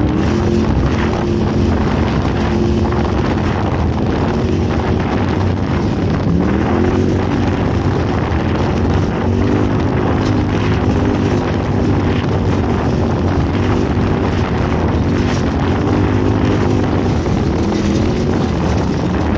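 Off-road race vehicle's engine running hard, its pitch climbing and falling with the throttle, under heavy wind noise on the microphone and the noise of the vehicle over rough ground.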